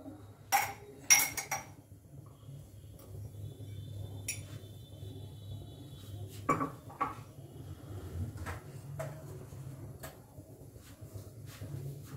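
Gas stove burner lit under a kadhai of ghee heating for a tadka, with a low steady hum. A few sharp clicks come about a second in, and lighter metallic clinks of kitchen utensils follow later.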